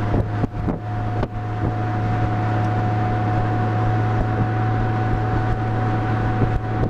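Touring motorcycle cruising at a steady speed: a steady engine drone with a thin steady whine above it, and wind rushing over the microphone that chops the sound a few times in the first second or so.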